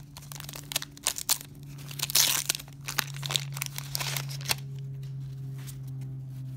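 Waxed-paper wrapper of a 1991 Donruss baseball card pack being torn open and peeled off the cards, crackling and crinkling, with the loudest tear about two seconds in. The crackling thins out after about four and a half seconds.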